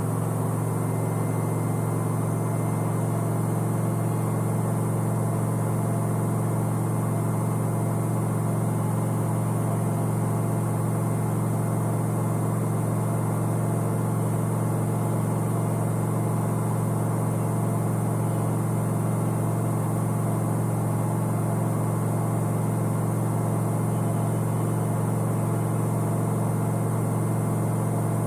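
Samsung front-load washing machine running, a steady low motor hum with no change in pitch or level.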